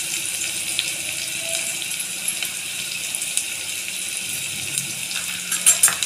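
Chopped onion and garlic sizzling in hot oil with cumin and mustard seeds, the tempering (tadka) for a tomato chutney: a steady hiss with scattered pops, and a louder burst of crackling near the end.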